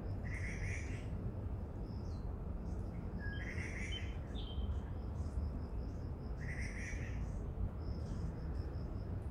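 A bird calling, a short chirping phrase repeated three times about three seconds apart, over a steady low rumble.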